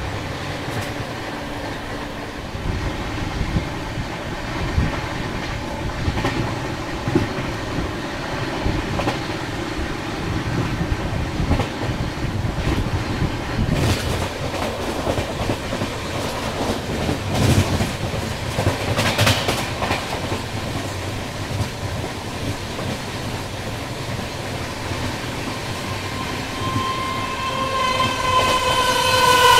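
Passenger coach wheels clattering over rail joints at speed, with a few heavier clacks along the way. Near the end, the horn of the oncoming Jammu–Ajmer Pooja Express sounds, getting louder and dropping in pitch as the two trains meet.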